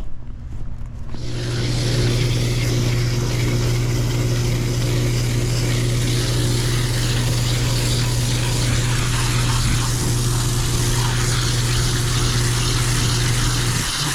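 Rheem heat pump's outdoor unit running: a steady electrical hum with a loud hiss over it, both starting about a second in and stopping just before the end as the thermostat is satisfied.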